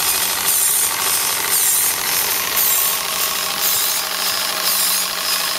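Model live-steam engine and water pump running off a small vertical boiler: steady mechanical running noise with a hissing pulse about once a second.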